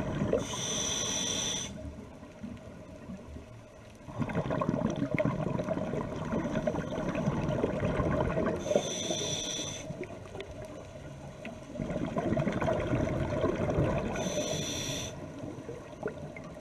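Scuba diver breathing through a regulator underwater: three hissing inhalations of about a second each (near the start, about halfway through and near the end), with a few seconds of bubbling, gurgling exhaust between them as the exhaled breath leaves the regulator.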